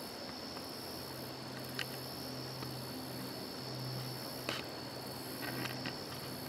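Steady high-pitched drone of crickets and other field insects, over a faint low steady hum, with a few light clicks.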